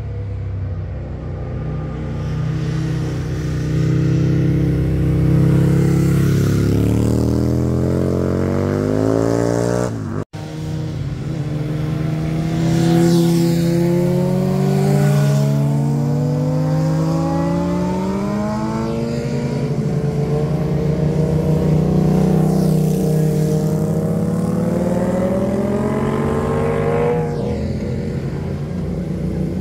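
Motorcycle engines accelerating through a bend, the pitch climbing through the gears in repeated rising sweeps. The sound breaks off sharply about ten seconds in, then the rising sweeps resume.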